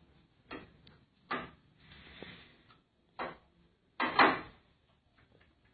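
Kitchen utensils knocking and clattering, about five separate hits. The loudest and longest comes about four seconds in.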